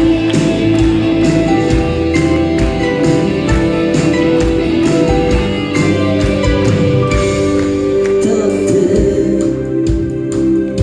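Live band playing a song, with a steady drum beat under electric guitars, bass and keyboards, and a lead vocal singing.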